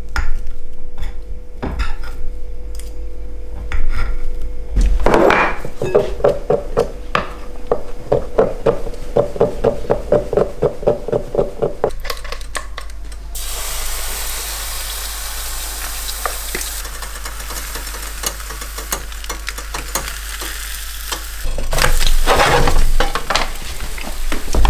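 Metal forks clicking and scraping on a plate as slow-cooked duck is pulled apart, then fast, even stirring strokes with a ringing clink. About halfway through, a steady sizzle as thin pancake batter hits a hot non-stick frying pan, with clattering near the end.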